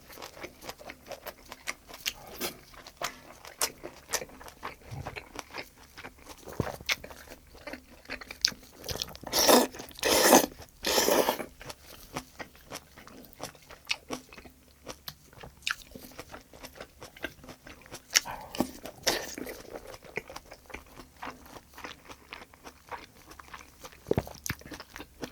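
Close-miked mukbang eating sounds: a person chewing and biting braised kimchi (kimchi-jjim), with many small wet clicks and crunches. A few louder bursts come about nine to eleven seconds in.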